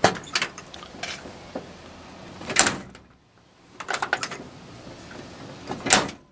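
1977 Chevy Blazer's steel door being opened with a click of the latch and slammed shut, twice: once about two and a half seconds in and again near the end. The door still has to be slammed harder than it should to latch, because it doesn't fit right.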